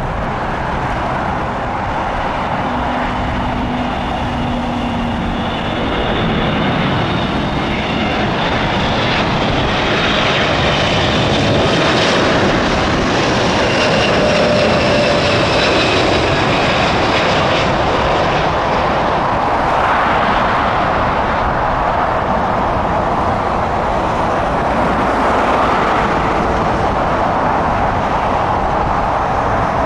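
Jet airliner engines running, a steady rush with high whining tones that slide slightly down in pitch, loudest about halfway through.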